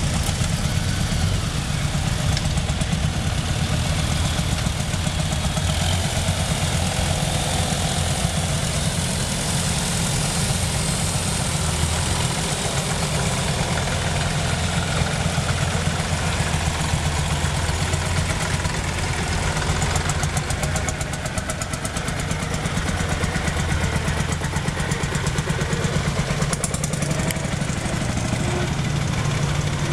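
Engines of vintage farm tractors running at low speed as a line of them drives slowly past one after another, a steady low rumble throughout.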